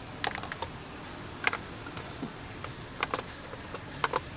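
A few scattered, sharp plastic clicks and taps as the 3-pin electrical connector is worked off the fuel rail pressure sensor.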